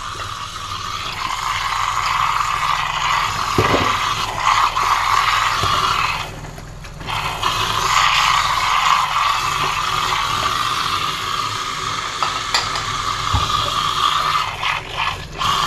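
Kitchen tap running hard into a stainless-steel sink while dishes are washed under the stream, with occasional clinks of crockery; the tap sounds loud. The water sound drops away for about a second around six seconds in, then runs on.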